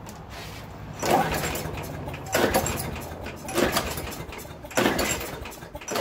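Recoil starter cord of a Craftsman Platinum mower's Briggs & Stratton 190cc engine pulled several times in a row, a little over once a second. Each pull is a rasping whir as the engine cranks over without firing: the spark plug is out and a compression tester in its hole reads about 60 psi.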